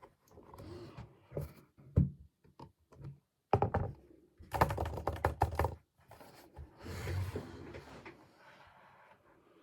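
Keys of an Apple Magic Keyboard for iPad clicking as it is typed on in irregular short bursts, with a quick run of keystrokes around the middle.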